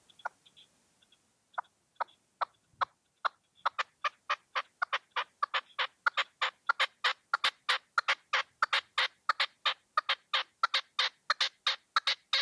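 Caged decoy male red-legged partridge calling: a run of short, rasping notes that starts sparse and speeds up to about four a second, growing louder as it goes.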